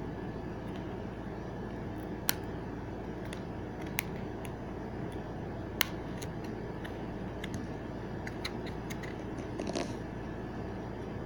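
Light handling clicks and ticks, three louder sharp clicks spaced about two seconds apart and a brief scrape near the end, over a steady background hum and hiss.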